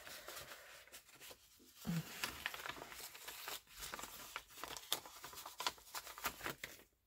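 Old paper sewing-pattern envelopes and folded pattern paper being handled, rustling and crinkling with many small crackles.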